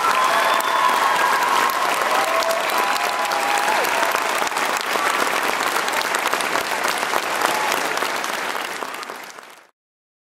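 Audience applauding, with a few drawn-out cheers over the clapping in the first few seconds. The sound cuts off suddenly near the end.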